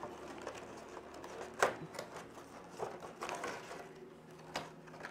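Plastic and cardboard packaging being handled: a few scattered clicks and crinkles, the sharpest about a second and a half in.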